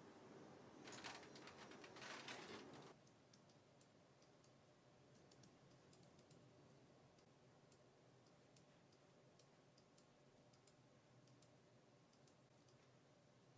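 Near silence with faint, irregular light clicks. A brief noisy sound in the first three seconds stops abruptly.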